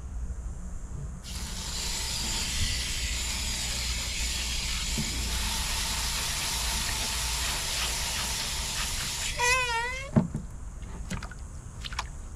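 Garden hose spray nozzle spraying water into a plastic tub onto a compressed coco coir brick to rehydrate it: a steady hiss and splash that starts about a second in and cuts off suddenly. Right after, a short warbling tone and a single knock.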